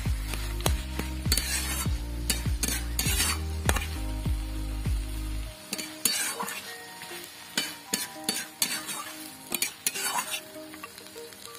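Metal spatula scraping and clinking against a metal kadai as chopped banana flower is stirred while it fries, with a light sizzle. There are many quick scrapes and knocks, and a low steady hum underneath stops abruptly about halfway through.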